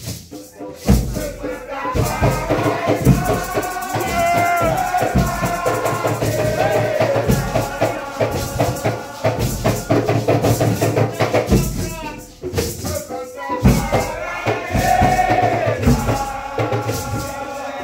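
Nyahbinghi drumming and chanting: hand drums beating steadily under a group of voices singing praise chants, with a shaker or rattle.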